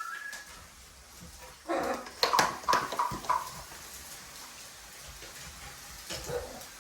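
Macaw giving a cluster of short pitched calls about two seconds in, then one more brief call near the end.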